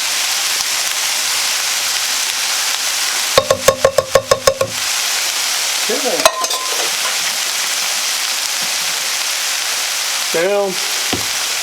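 Chicken, vegetables and beans sizzling steadily in hot oil in a skillet. A little over three seconds in comes a quick run of about nine ringing metal knocks, then a single click a couple of seconds later.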